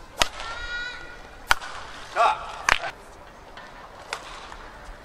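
Badminton rally: a shuttlecock struck back and forth by rackets, three sharp cracks about a second and a quarter apart and a softer one later, with court shoes squeaking on the floor between shots.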